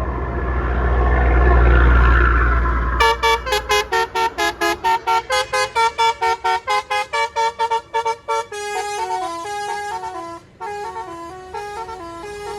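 A bus's engine rumbles, swells over the first few seconds and stops about three seconds in. A Basuri telolet multi-tone bus horn then plays a fast run of short staccato notes, about four a second, and goes on into a tune of longer held notes stepping up and down in pitch.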